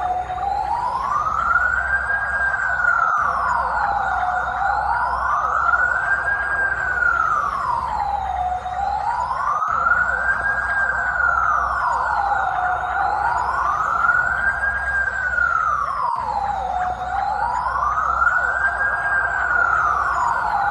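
UK police siren on its slow wail, the pitch rising and falling smoothly about once every four seconds, over a low rumble.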